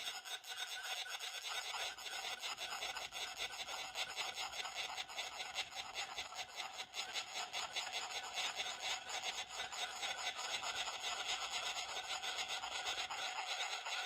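Frogs calling: a continuous train of rapid rasping pulses, with no deep notes.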